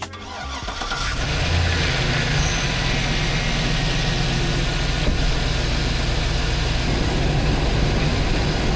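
Hummer H2's V8 engine running steadily with a deep rumble, fading in over the first second or so.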